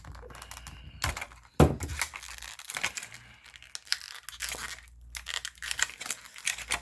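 Stiff plastic blister pack being pried and torn open: irregular crackling and crinkling of plastic, with one sharp crack about a second and a half in.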